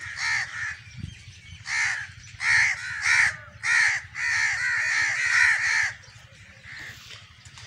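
Crows cawing: a series of harsh caws, the last several coming in a quick run about four to six seconds in, over a faint steady low hum.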